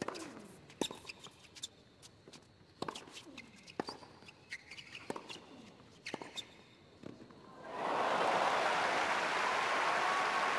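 Tennis rally: a racket hitting the ball about once a second, some hits followed by a player's short falling grunt. About eight seconds in, the crowd breaks into loud applause and cheering, which holds to the end.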